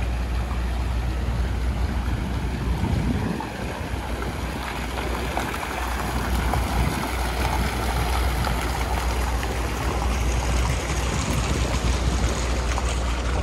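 Steady city street noise: a continuous rushing wash of traffic with a constant low rumble underneath.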